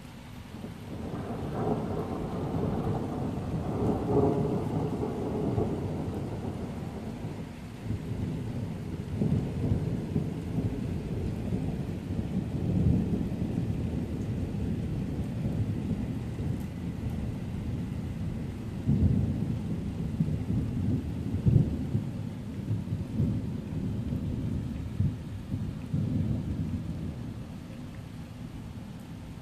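Long rolling thunder: a low rumble swells about a second in, rolls on with repeated sharper cracks for over twenty seconds, and dies away near the end. Steady rain falls throughout.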